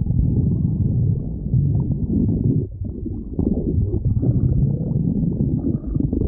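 A hungry person's stomach growling: continuous low rumbling and gurgling that dips briefly a little before halfway through.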